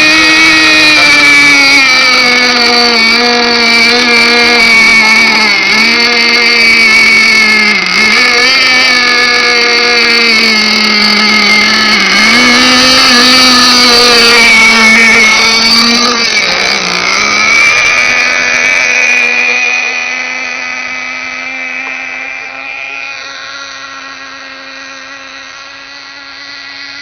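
Gas engine of a ShockWave RC boat running at high revs, its pitch dipping briefly every couple of seconds as the throttle is eased and opened again. From about eighteen seconds in it holds a steadier pitch and grows fainter.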